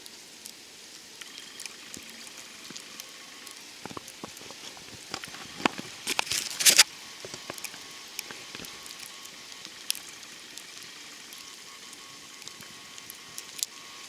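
Wet snow and meltwater drips pattering on surfaces, a steady hiss scattered with small irregular ticks, with a louder burst of clicks and knocks about six to seven seconds in.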